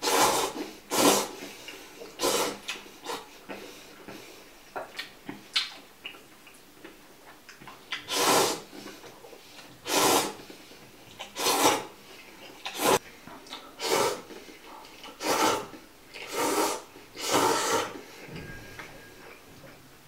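A man slurping noodles in about a dozen loud, noisy slurps, each under a second, with irregular pauses and quieter small mouth noises between them.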